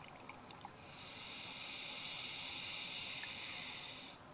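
Scuba regulator hissing steadily as the diver draws one long breath in through it; the hiss starts about a second in and cuts off sharply just before the end.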